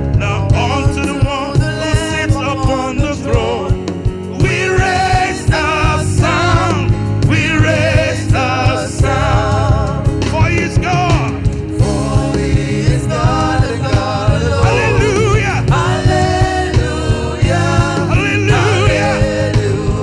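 Gospel praise and worship song: voices singing a wavering melody over a band with a steady bass and a regular beat.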